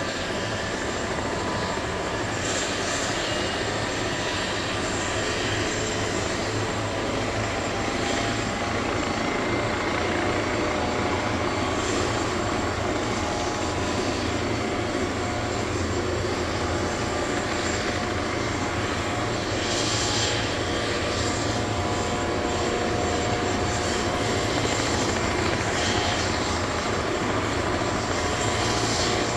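Airbus Helicopters EC155B1 (H155) twin-turboshaft helicopter running steadily, turbine whine over rotor noise, slowly getting a little louder.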